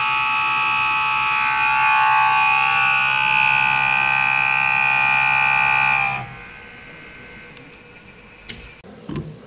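CRI100A common rail injector test bench running with a loud, steady whine of several tones, cutting off suddenly about six seconds in as the test is stopped. Two light knocks follow near the end.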